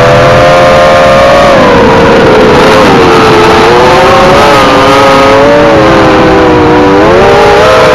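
Eachine Wizard X220 racing quadcopter's brushless motors and Racerstar 5048 props whining loudly. The pitch drops about two seconds in as the throttle eases, the motors split into several separate tones, then the pitch climbs again near the end. A steady rush of air noise runs beneath the whine.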